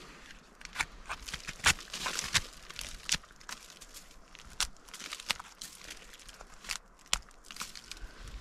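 A folding knife cutting and prying dead bark off a rotted root, the bark tearing away in short, irregular crackles and snaps.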